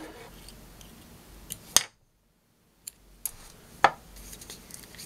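Small sharp clicks of fly-tying scissors and tools at the vise as the tying thread is snipped after the finish knot, with a few lighter metal clinks. The two loudest clicks come about two seconds apart, with a second of dead silence between them.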